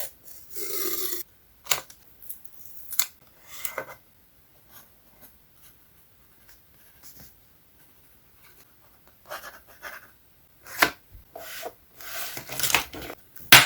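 Paper and craft materials being handled on a journal page: short rustles and scrapes of paper with sharp clicks and taps in between, coming in separate bursts with quiet gaps.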